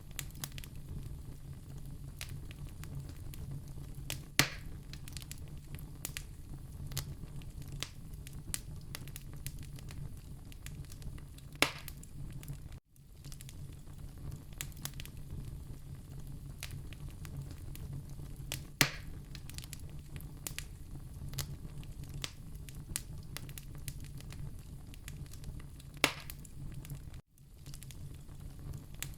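Wood fire in a fireplace crackling steadily over a low rumble, with four loud pops about seven seconds apart. The sound cuts out for an instant twice, about halfway through and near the end.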